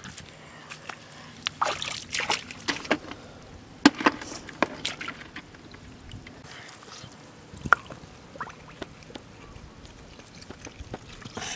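Small wet splashes and squelches in a shallow muddy rock pool, coming in scattered clusters of short strokes, most of them in the first five seconds.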